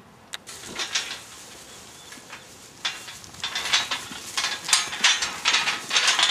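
Steel sheep hurdle panels rattling and clanking as a mob of sheep crowds and pushes against them. A few light knocks come first, then irregular, louder bursts of rattling from about three seconds in.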